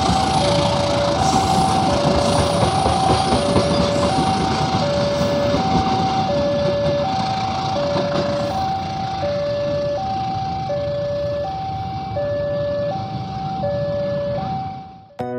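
Passenger coaches rolling past on the rails with a steady rumble that slowly fades as the train moves away, while a railway level-crossing alarm keeps sounding two alternating tones, one high and one lower, in an even repeating pattern. Both cut off near the end, when music starts.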